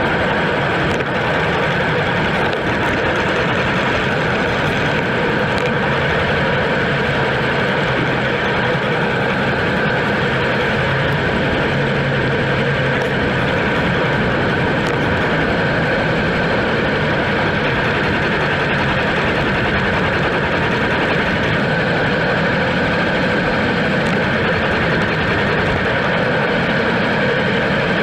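Steady rush of wind over an action camera's microphone on a moving road bike, mixed with the hum of tyres rolling on asphalt, at an unchanging level.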